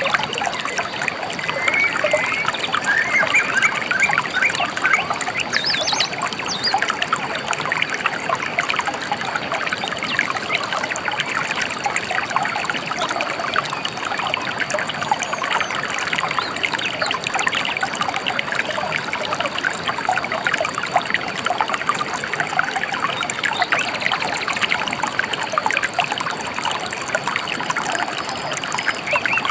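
Gentle river water trickling and babbling steadily, with a few brief bird chirps a few seconds in.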